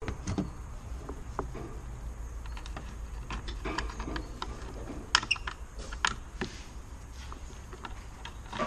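Small clicks and scraping of a screwdriver prying plastic screw covers out of a car's tail-light surround, with a few sharper clicks about five and six seconds in.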